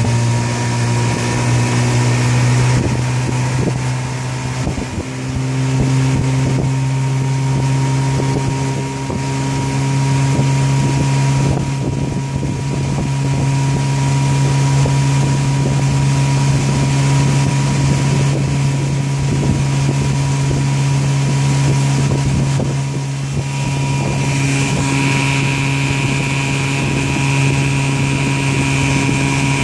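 1954 Evinrude 5.5 hp outboard motor running steadily under way, pushing the boat along at a constant speed, with some wind on the microphone. A higher whine joins the engine note near the end.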